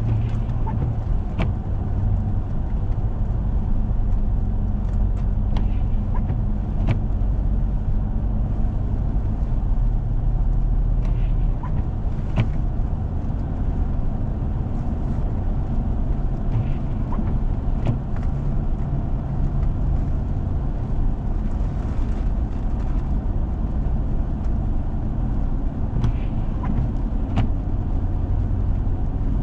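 A car driving on a snow-covered road: a steady low engine and road drone, with a few sharp clicks now and then.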